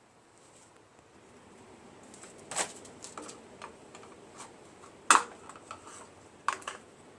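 Sharp clicks and knocks of hard parts being handled, the loudest about five seconds in, with lighter ticks in between.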